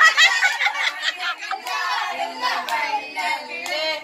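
Hands clapping along while several voices sing together.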